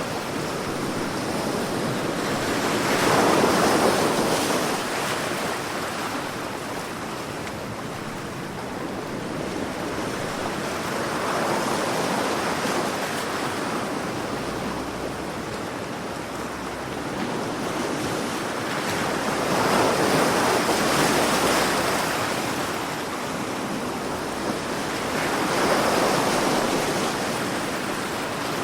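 Sea waves surging and washing back, swelling four times, with the loudest surge about three seconds in.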